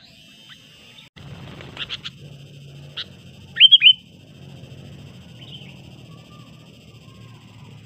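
Sooty-headed bulbul calling: a few short whistled notes about two and three seconds in, then the loudest, a quick cluster of curved notes just before the four-second mark. A steady high background drone and a low hum run beneath.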